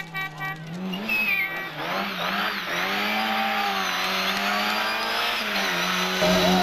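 Rally car engine running hard, its pitch rising and dipping, with a dense hiss of tyre noise building from about two seconds in.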